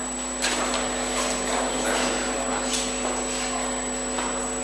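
Room tone: a steady hum and hiss with a few faint knocks.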